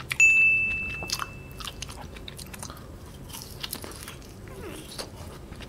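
A brief, steady, high ringing tone near the start, then a person biting into and chewing an ice lolly, with scattered short crisp clicks and crunches.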